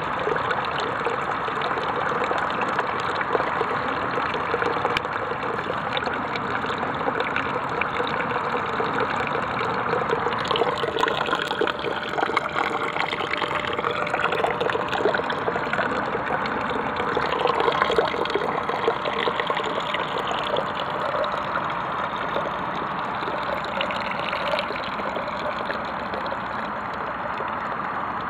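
Water running and splashing steadily into a plastic container, pumped through a compost heater's pipe circuit by a small 12-volt pump.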